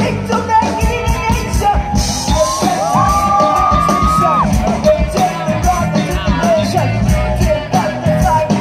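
Live rock band playing through a PA: drum kit, bass, electric guitars and a sung lead vocal, with a long held, sliding note near the middle.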